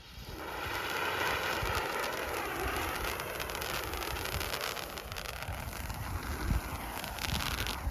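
Ground firework lit and spraying sparks with a steady hiss whose pitch wavers, starting suddenly.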